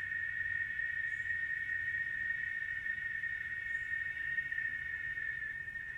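A steady, unbroken high-pitched drone from a chorus of insects, with a faint short chirp high above it every few seconds.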